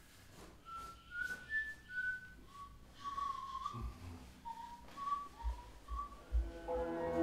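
A person whistling a tune softly, one clear pitch moving from note to note, with a few dull low thumps in the second half. Music comes in just before the end.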